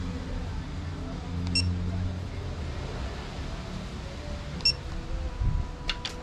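Two short, high electronic beeps from a digital torque wrench, about three seconds apart, over a low steady hum. A couple of sharp clicks near the end.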